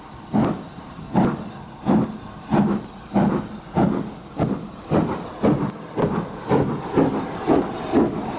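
Steam locomotive's exhaust chuffing as it works a train past, pouring out black smoke. The beats come about every three-quarters of a second at first and quicken to about two a second as it gathers speed.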